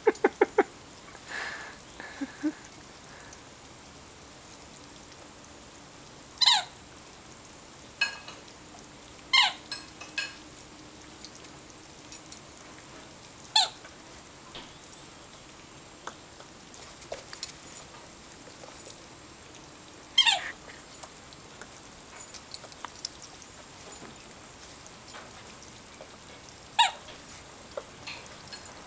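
A yellow Labrador puppy biting a blue squeak toy, making it give short, sharp squeaks, about five of them spaced several seconds apart. Quieter clicks and scuffles come in between.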